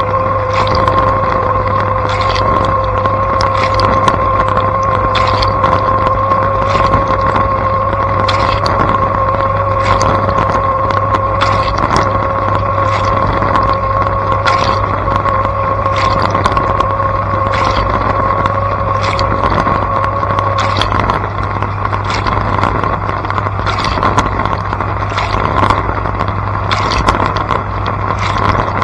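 Blanco dishwasher running mid-wash, heard from inside the tub. Its pump hums steadily, with a steady tone that stops about two-thirds of the way through. Water from the spinning spray arms splashes in sharp hits, roughly one or two a second.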